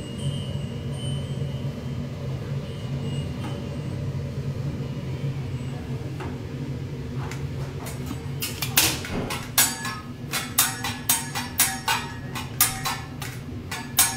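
A steady low hum, then about eight seconds in sharp metallic taps begin, roughly two a second: a teppanyaki chef's steel spatula tapping as he tosses an egg on it over the griddle.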